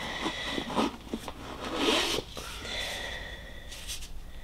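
Foam footbed being pulled out of a Hi-Tec Penrith kids' hiking boot: the insole rubs and scrapes against the boot's lining, in uneven strokes that are loudest about two seconds in.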